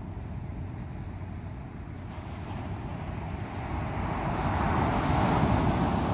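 Sea waves breaking on the shore: a low wash of surf that swells into a louder breaking wave about four to five seconds in, then starts to ebb.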